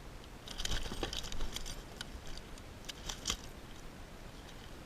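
Fishing tackle rattling as a hooked northern snakehead thrashes: irregular metallic jangling and clicks in quick clusters for about three seconds, then they stop.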